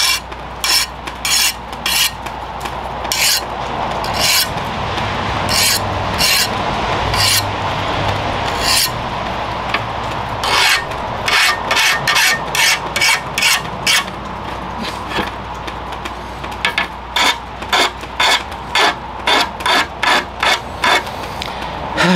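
A hand file rasping across the edge of a freshly quenched leaf-spring steel knife blade in a file test for hardness. There are a few slower, longer strokes at first, then quick short strokes about two a second, and the tone changes with where the blade is rested.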